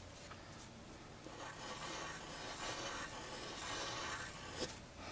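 Graphite pencil scratching on drawing paper as it draws a tight spiral, louder from about a second and a half in, with one sharp tap near the end.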